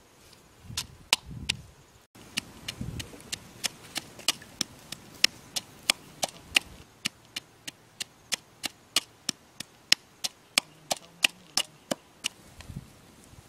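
A wooden pestle knocking into a coconut-shell bowl, crushing red chilies and salt, in an even rhythm of about three sharp knocks a second.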